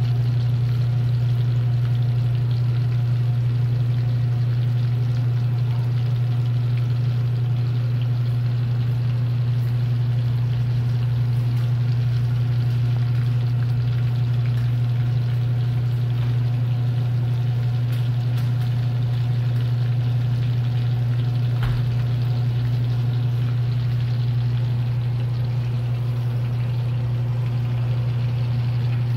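Breaded cutlets sizzling as they shallow-fry in oil in a stainless steel skillet, over a loud, steady low machine hum. One brief tap near the end.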